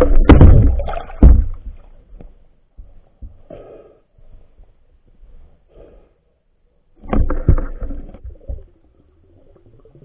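Underwater recording: low knocks and bumps against the camera housing, then short bursts of water rustling, with another cluster of knocks about seven seconds in.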